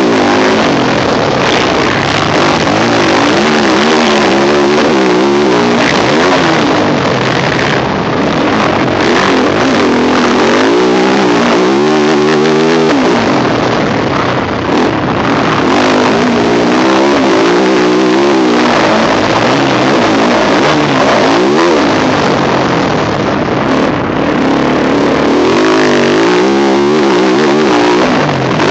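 Yamaha YZ450F four-stroke single-cylinder motocross engine under hard riding, its pitch repeatedly climbing and dropping as the throttle is opened and shut and gears change, over a constant loud rushing noise.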